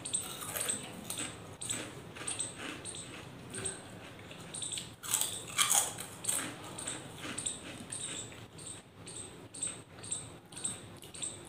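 Crunchy fried potato snacks being bitten and chewed close to the microphone: a run of crisp crunches, about two to three a second, with a few louder ones around five and six seconds in.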